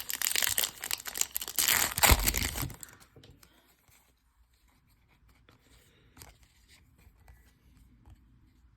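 Foil trading-card pack wrapper being torn open and crinkled for about three seconds, then only faint soft ticks as the cards are handled.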